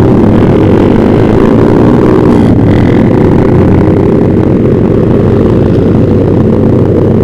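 Yamaha Vixion's single-cylinder four-stroke engine running through a Proliner TR1 short aftermarket exhaust while riding, a steady exhaust note whose pitch wavers slightly about two seconds in.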